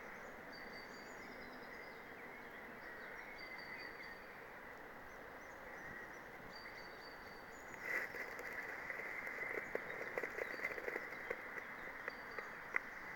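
A bird giving short, high, even-pitched notes every second or two over a steady outdoor hiss. About two-thirds of the way in, irregular soft ticks and crackles join in.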